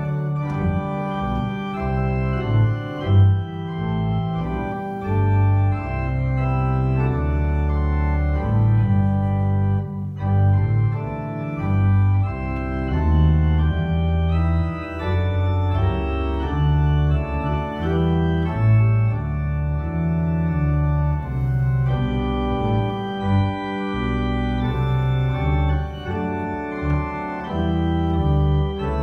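Two-manual electronic organ playing slow, sustained full chords over a strong bass line, the chords changing about once a second.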